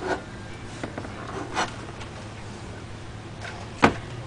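Car audio amplifiers and their hardware being handled while they are pulled out: a few short knocks and rattles, the loudest a sharp knock near the end, over a low steady hum.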